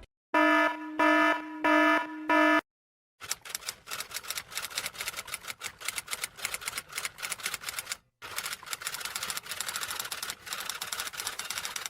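Four short electronic beeps, then a fast, continuous clatter of typing clicks that pauses briefly about two-thirds of the way through.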